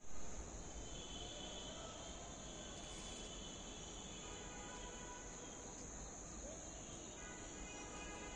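Steady, high-pitched insect chorus over a low background rumble.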